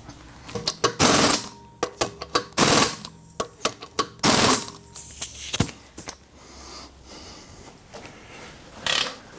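Pneumatic impact wrench running in several short bursts, driving in and tightening the wheel bolts of a car's front wheel, with sharp clicks and knocks between the runs.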